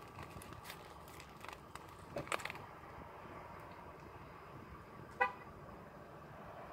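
Biting into a crusty baguette sandwich and chewing, with short crunches and crinkles of its paper wrapper in the first couple of seconds, in a quiet car cabin. About five seconds in comes one short tooting beep.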